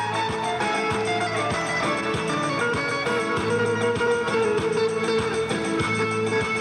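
Instrumental music with guitar and a steady beat.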